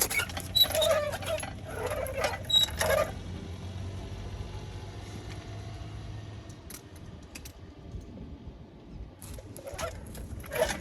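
Metal hand tools clinking and rattling as they are handled at the axle, in several quick bursts over the first three seconds and again near the end, with a low steady hum beneath.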